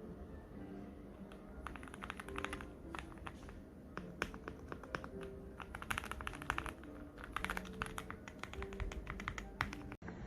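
Typing on a mechanical keyboard fitted with Gateron Milky Yellow Pro linear switches: quick runs of keystrokes starting about two seconds in, with short pauses between runs.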